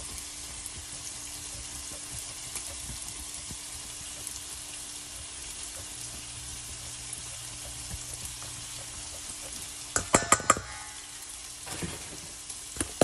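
Steady sizzling hiss of food frying in a pan, with a faint steady hum under it. About ten seconds in comes a quick cluster of sharp clinks and knocks, and a few more come near the end.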